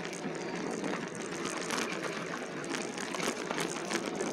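An e-bike rolling over a rough, bumpy trail: steady tyre and riding noise full of small rattles and knocks from the bike.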